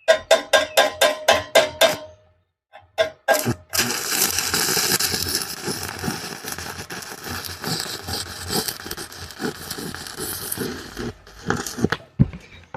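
A 1/8" 6013 stick-welding electrode is tapped against steel tubing about a dozen times in quick metallic strikes, then twice more, before the arc catches and crackles steadily for about seven seconds and stops near the end. The repeated tapping is needed because this electrode's flux coating stands out past the steel core and will not make contact. The welding sound is very hollow.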